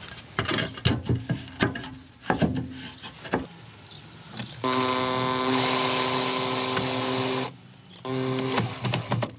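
A hammer knocking a wooden strip into a frame with a run of irregular blows. Then a cordless drill runs steadily for about three seconds, stops, and runs again briefly near the end.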